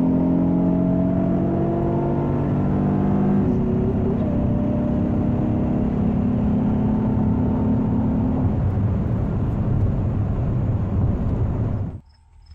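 Pontiac Grand Am GT's 3.4 L V6, fitted with a ported intake plenum, running hard under full throttle on a drag-strip pass. There is a gear change about three and a half seconds in, and the engine note then gives way to a steady rush of wind and road noise. The sound cuts off abruptly near the end.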